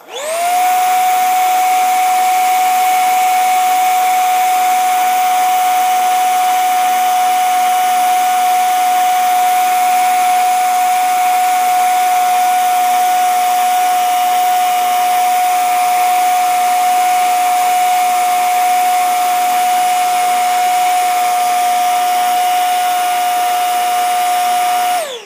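Handheld hair dryer switched on, its motor spinning up within half a second to a steady whine over a rush of hot air, then switched off at the end. It is blowing heat onto a power supply circuit board.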